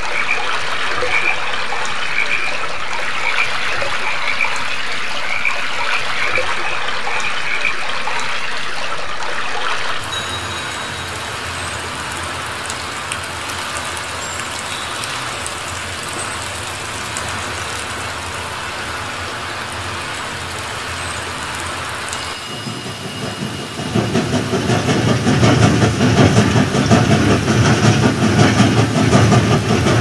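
A stream babbling over rocks with small birds chirping repeatedly for about ten seconds. Then steady rain falls on a puddle for about twelve seconds. Near the end a passenger train passes loudly on the rails.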